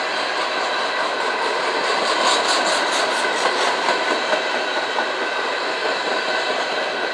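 Freight cars of a CSX manifest train rolling past: steady rumble and rail noise, with a run of quick clicks from the wheels over rail joints about two to four seconds in.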